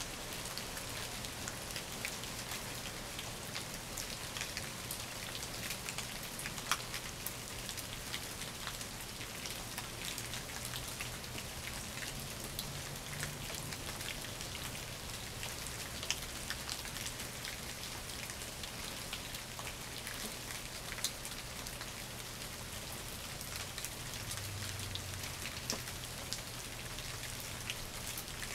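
Steady rain falling on shrub leaves and leaf-covered ground, with many sharp ticks of single drops striking close by.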